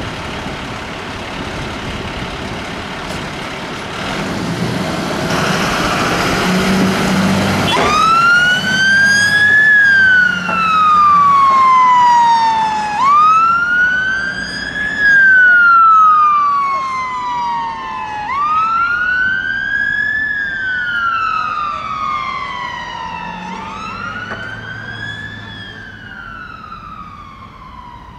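Volvo FL fire engine's diesel engine running as it pulls away. From about eight seconds in, its Whelen Alpha electronic siren sounds a wail that rises quickly and falls slowly, about every five seconds. It grows fainter near the end as the engine drives off.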